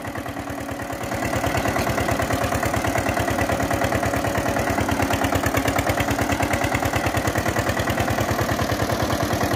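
Old Eicher tractor's diesel engine chugging with a rapid, even exhaust beat as it hauls a trolley overloaded with about 60–65 quintals of sugarcane over soft soil. The beat gets a little louder about a second in, then holds steady.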